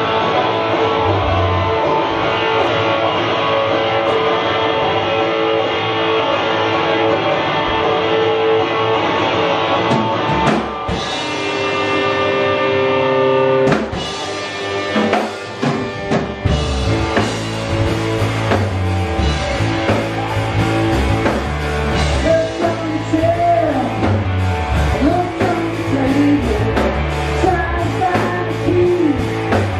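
Live rock band with electric guitars and a drum kit: held guitar chords ring for about the first half, then the drums and low end come in and the full band plays, with a male voice singing over it in the last third.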